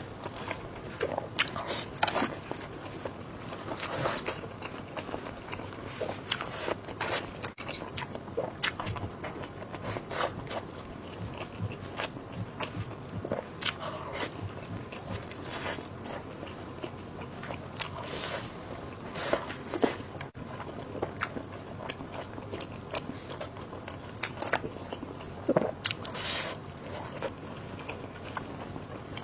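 A person eating close to the microphone: repeated biting and chewing with crunchy, crackling bites at irregular intervals.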